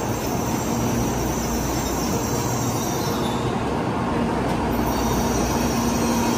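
A train running on rails: a steady rumbling run with a few held whining tones over it.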